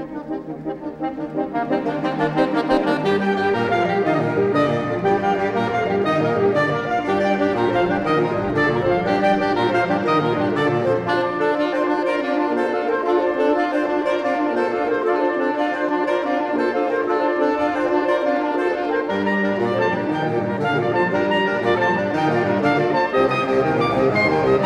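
A saxophone quartet playing sustained chords in close harmony. The music swells in over the first couple of seconds; the low notes fall away for several seconds in the middle and come back near the end.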